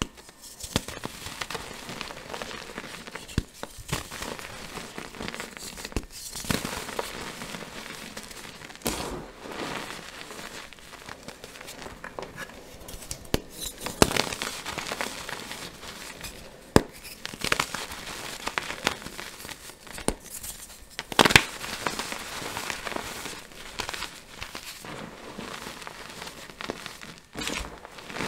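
Blocks of dyed gym chalk crushed and crumbled by hand: dense crunching and crackling, with sharp snaps as pieces break off, the loudest snap about three-quarters of the way in.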